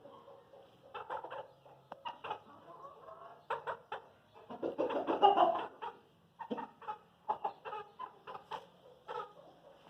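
Aseel chickens clucking in a run of short clucks, with one louder, drawn-out call around the middle.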